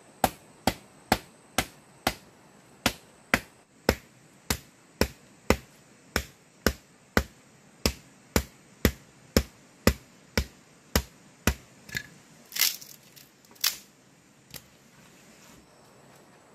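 Sharp knocks of a hand-held stone striking a wooden stick laid across a rock, steady at about two a second, then a few louder, rougher blows about twelve seconds in before they stop.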